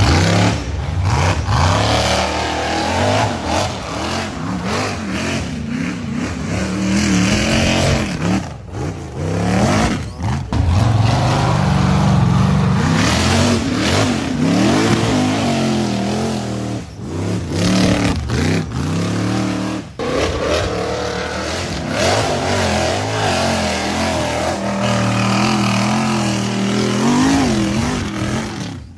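Side-by-side UTV engines revving and accelerating hard, the pitch climbing and dropping again and again, with several abrupt cuts from one run to the next.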